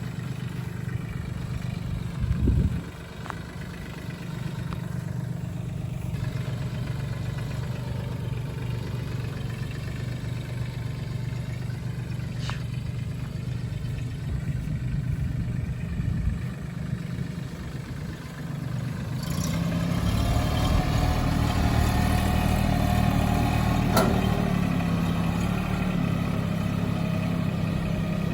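A vehicle engine running steadily, with a brief low thump about two and a half seconds in. The engine gets louder about twenty seconds in.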